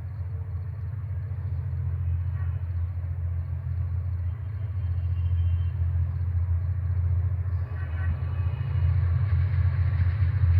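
Passenger train's diesel locomotive approaching: a steady low engine rumble growing louder throughout.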